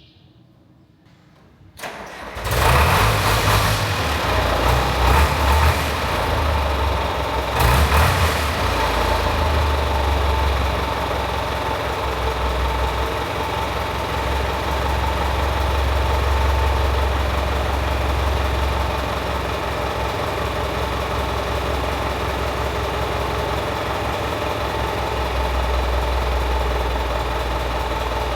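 Caterpillar D4C bulldozer's diesel engine, freshly rebuilt with a new crankshaft and crankshaft bearings, starting about two seconds in. It surges briefly a couple of times, then settles into a steady idle.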